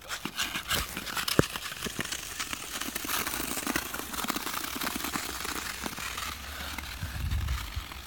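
Skates scraping and crackling over a rough, icy road surface, a dense run of scratchy crackles that thins out after about six seconds. A low rumble swells briefly near the end.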